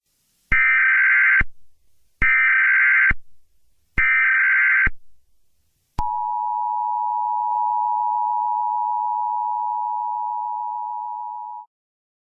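Emergency Alert System alert tones: three one-second bursts of SAME header data, then the steady two-tone EAS attention signal held for about six seconds before it cuts off.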